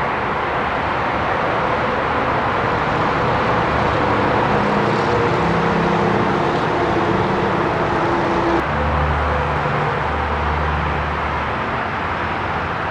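Running equipment of a microturbine combined cooling, heating and power plant: a loud, steady mechanical whirr with hums underneath that shift about two-thirds of the way through.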